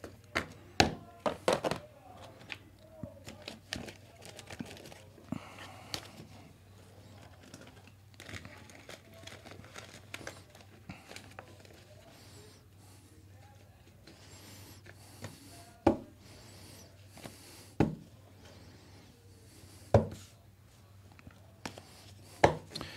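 Trading cards and their plastic wrappers and sleeves being handled and sorted on a table: rustling with many scattered light clicks and taps, and a few sharper taps in the second half.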